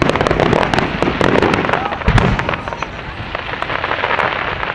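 Aerial fireworks going off: a dense run of rapid crackles with a deeper boom about two seconds in.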